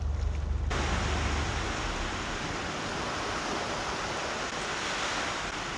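Surf washing onto a beach: a broad, steady hiss that starts suddenly about a second in and slowly dies away. A low rumble sits under it at the start.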